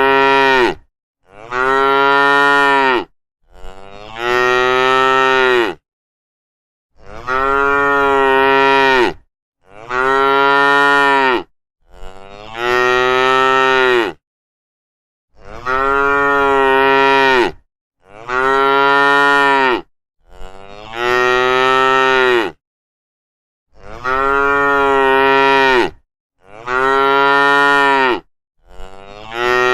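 Cattle mooing: a string of loud, drawn-out moos of about two seconds each, with complete silence between them. The same three-moo sequence repeats about every eight seconds.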